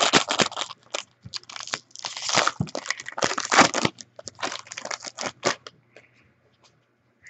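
A trading-card pack's wrapper being torn open and crinkled by hand: irregular crackling rustles that die away about five and a half seconds in.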